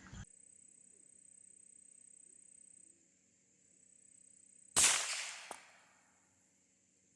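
A single shot from a Rossi RB22 .22 bolt-action rifle, about five seconds in, ringing out over about a second, followed by a short sharp click. The rest is a faint steady hum.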